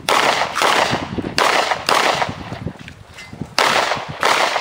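Three pairs of gunshots from a competitor's firearm during a 3-gun match stage, the shots in each pair about half a second apart, each trailing off in an echo.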